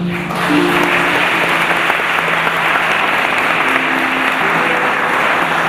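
Wedding congregation applauding, starting a moment in and holding steady, over instrumental music with long held notes.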